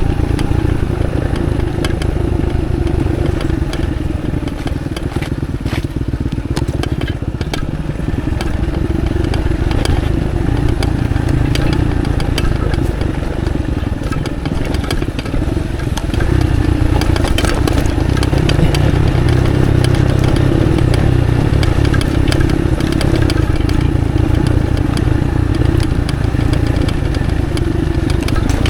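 Off-road motorcycle engine running at low speed on a rough, muddy trail, with scattered clattering clicks; it gets louder about two-thirds of the way through as more throttle is given.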